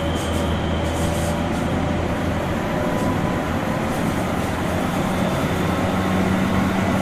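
Keihan 2600 series (0 subseries) electric train running, with a steady rumble of wheels on rail and a low motor hum that grows stronger near the end.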